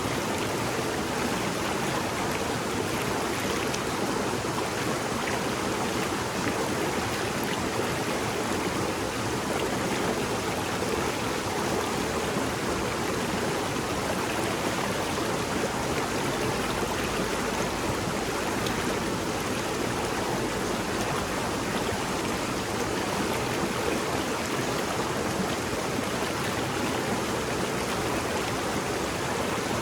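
Shallow river babbling: a steady, even rush of flowing water.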